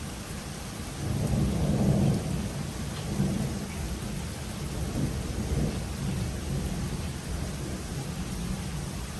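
Steady rain with a roll of thunder that swells in about a second in and rumbles on through the rest, loudest early and dying back in uneven waves.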